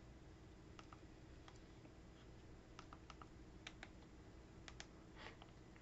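About a dozen faint, irregular button clicks, the kind made by a remote control's buttons being pressed while scrolling through menus, over quiet room tone.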